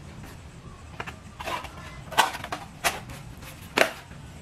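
Handling noises on a wooden workbench as RC wheel parts are picked up and set down: about five sharp knocks and clicks, roughly a second apart, over a low steady hum.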